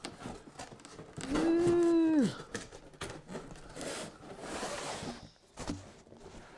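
Cardboard crossbow box being handled, its lid and flaps rustling and sliding against each other. About a second in there is a held pitched tone lasting about a second, louder than the rustling.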